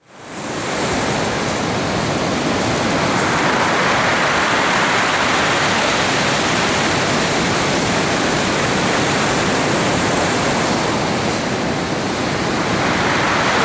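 Ocean surf from a hurricane swell rushing in a steady, unbroken wash, fading in at the start.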